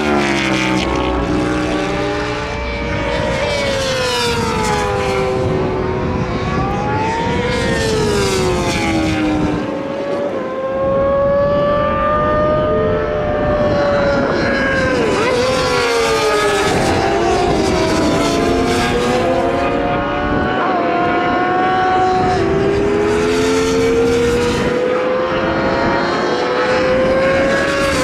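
Superbike and supersport racing motorcycles passing one after another at full throttle, several engines at once. Their pitch climbs through the gears and drops as each bike goes by, with a close pass every few seconds.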